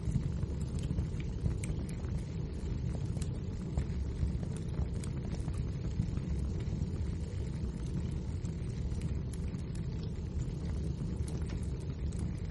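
Wood fire burning in a fireplace: a steady low rumble of the flames with scattered small crackles and pops throughout.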